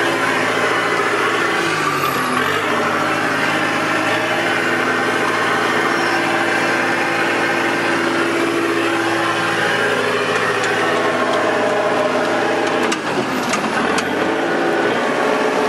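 John Deere tractor engine running steadily, its note sagging briefly about two seconds in and again near the end.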